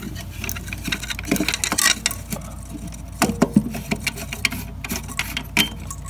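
Irregular small metallic clicks, taps and scrapes as an old doorbell transformer's mounting nut is loosened by hand and the transformer is worked free of a metal junction box, with a sharper cluster of clicks a little past halfway.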